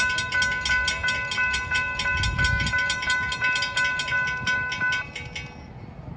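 Railroad grade-crossing bell ringing about three strokes a second while the crossing gates come down. It stops suddenly about five seconds in, once the gates are fully lowered.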